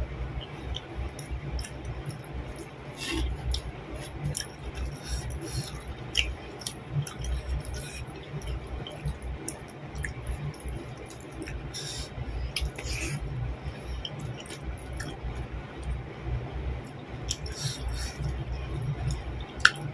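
Close-up eating sounds: wet chewing and mouth smacks of fried eggplant and rice eaten by hand, with many small clicks and clinks of fingers and food against the plate and stone mortar, and one sharp click near the end.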